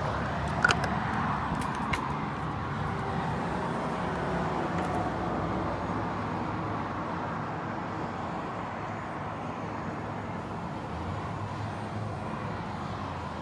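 A push-button latch on an aluminum horse trailer door clicks open about a second in, followed by a lighter click about a second later, over a steady outdoor background rush.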